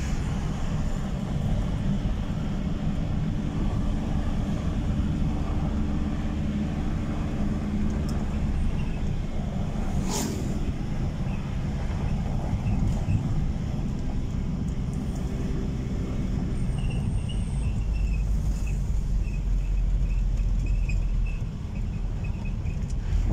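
Inside a moving vehicle: steady engine hum and tyre rumble while driving, with one sharp knock about ten seconds in.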